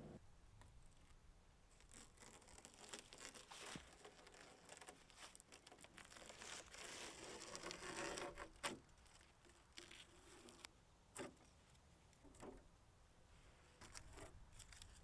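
Faint handling noises during car door restoration work: irregular crinkling, rustling and scraping, with a few sharp clicks, the busiest stretch about halfway through.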